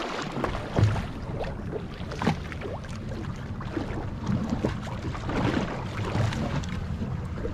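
Choppy sea water slapping and sloshing against the hull of a drifting fishing boat, over a steady low rumble, with a few scattered knocks.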